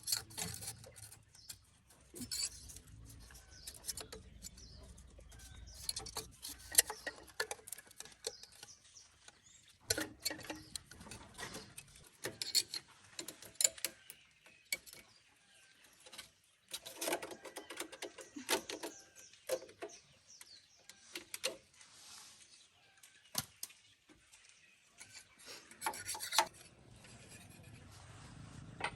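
Scattered, irregular clinks, taps and scrapes of hand work on tractor parts, with bursts of quicker clicking now and then.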